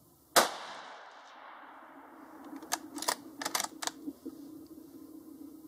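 A single rifle shot from a 5.56 Ruger Ranch Rifle: one sharp crack with a long echo that dies away over a couple of seconds. About three seconds in comes a quick run of sharp clicks.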